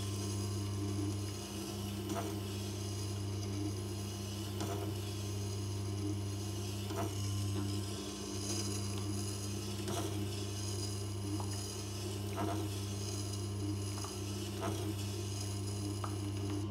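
Tormek wet grinder running with a steady motor hum while a skew chisel in a jig is ground on its turning grindstone. The steel scrapes on the stone in a sweep that repeats about every two and a half seconds as the tool is pivoted from its short point to its long point.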